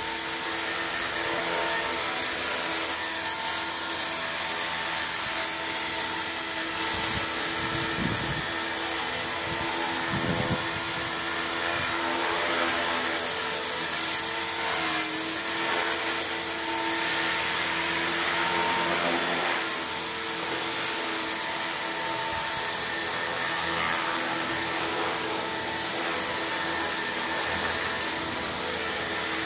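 T-Rex 450-class electric RC helicopter hovering near the ground: a steady whine from its electric motor and spinning rotor blades, holding several tones at once.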